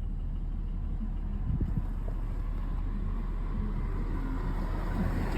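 Mercedes E350's 3.5-litre M272 V6 engine idling low, about 600–700 rpm, not yet fully warm, with a rattling knock from the engine. The knock comes from scored cylinder walls.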